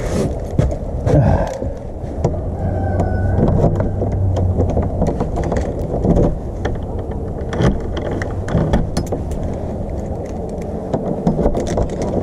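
Steady low rumble of handling and rustle on a body-worn camera's microphone, with scattered clicks and rattles as keys are handled and a key is worked in a front door's lever-handle lock.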